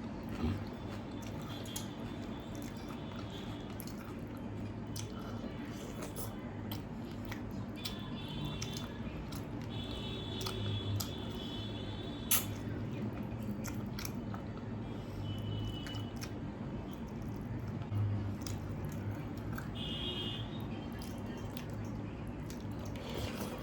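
Close chewing and wet, squishy mouth sounds of a person eating water-soaked rice (panta bhat) with chicken curry, with many small scattered clicks and one sharp click about twelve seconds in, over a steady low hum.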